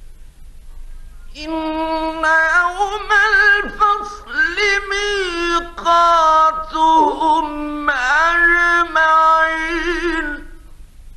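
A male Quran reciter chanting one long phrase in a high register, in the melodic tajwid style, with the pitch wavering and ornamented. It starts about a second in and stops near the end, over a steady low hum from the old recording.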